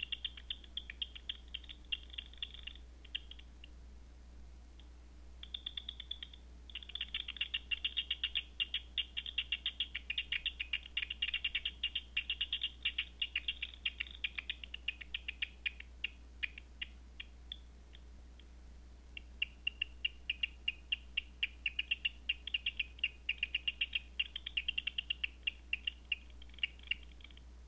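Bat echolocation calls made audible by a Batseeker 4 bat detector, heard as rapid trains of clicks. The clicks stop twice for a second or two, then start again.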